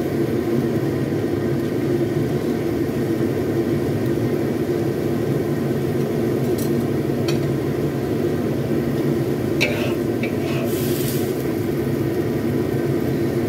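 A metal spatula clinks and scrapes a few times against a wok of stir-fried watercress, with a short scrape about eleven seconds in as the vegetables are tipped out. A steady low mechanical drone runs underneath and is the loudest sound.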